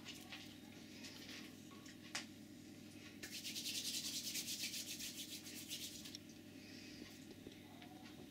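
Kitten claws scratching and scrabbling on a plastic laundry basket: a rapid rasping scratch lasting about three seconds from just before the middle, with a few small taps and clicks around it.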